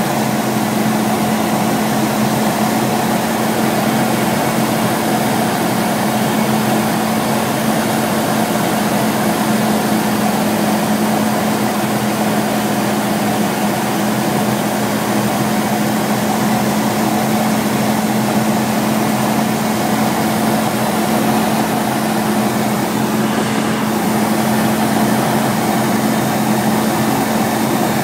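Robin DR400's 108 hp four-cylinder Lycoming aero engine and propeller droning steadily in flight, heard from inside the cabin.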